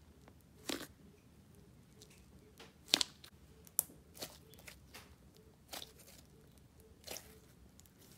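Thick white basic slime with glitter and fimo slices being squeezed, poked and stretched by hand, giving scattered short sticky pops and crackles, the loudest about three seconds in.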